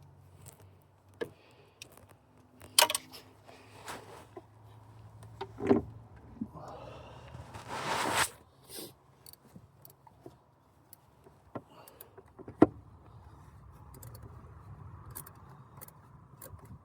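Scattered clinks and knocks of hand tools and metal parts being handled during engine reassembly, with a short rustling swell about seven seconds in.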